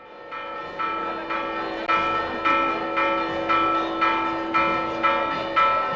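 Church bells ringing in a fast, even peal, about two strikes a second, each strike ringing on into the next. The peal fades in over the first second.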